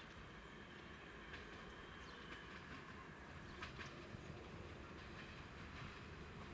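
Faint low rumble of an approaching train, growing slightly louder.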